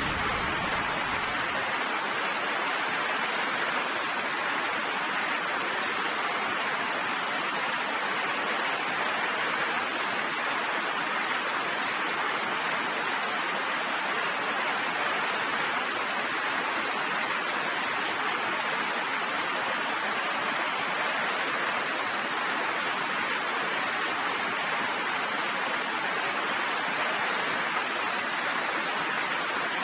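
Steady, even rain falling, with the tail of a low thunder rumble dying away in the first two seconds.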